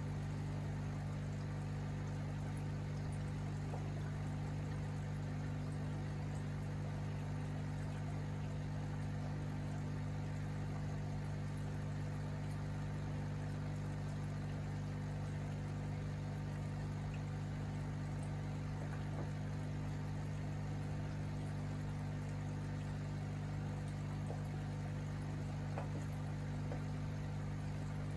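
Aquarium air pump or filter running with a steady low hum, with faint bubbling water from the tank's aeration.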